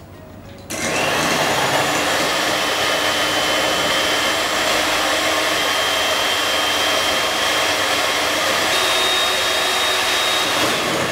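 Electric hand mixer running steadily, its beaters whipping egg whites up to soft peaks. It starts suddenly under a second in, its whine steps up a little twice, and it begins to die away at the very end.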